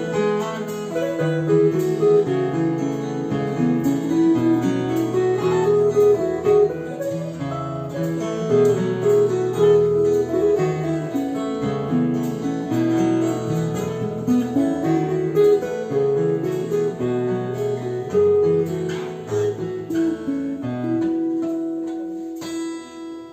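Instrumental break in a folk song: acoustic guitar music, strummed and plucked, with a moving melody line over bass notes. It quietens near the end.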